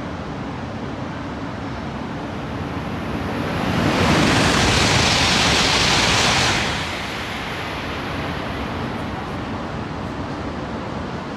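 A train rushing past at speed: a loud rush of noise that swells up about three seconds in, holds for about three seconds and drops away sharply, over a steady background rumble.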